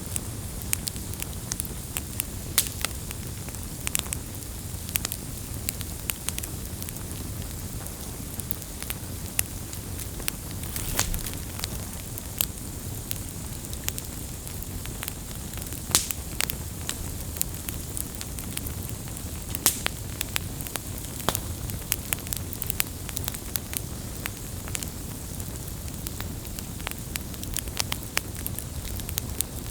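Wood campfire burning: a steady low rumble of flames under frequent sharp crackles and pops from the burning wood, a few of them louder than the rest.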